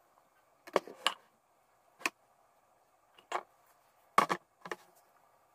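About six light, separate clicks and knocks from a ceramic jar being handled and turned over a candle flame to dry it after sterilising with alcohol. The loudest knock comes about four seconds in.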